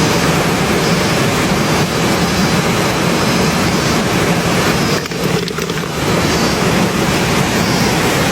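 Stream water rushing: a loud, steady noise that dips briefly about five seconds in.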